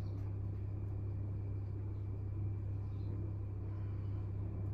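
Steady low electrical hum with a faint background hiss.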